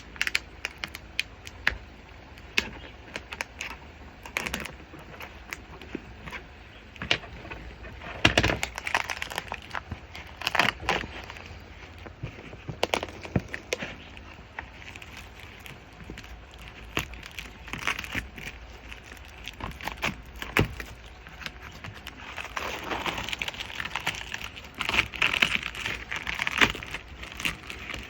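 A coiled bandsaw blade being unpacked and handled: crinkling wrapping and scattered clicks and light metallic rattles. There are several louder rustling bursts, one about a third of the way in and one near the end.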